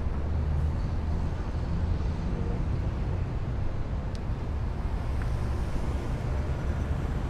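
Steady low rumble of background ambience with a faint hiss over it.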